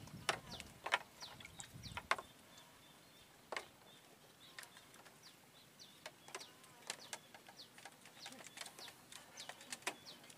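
Quiet scattered clicks and taps from fishing tackle being handled while the hook is baited, loudest in the first two seconds, with faint short high bird chirps throughout.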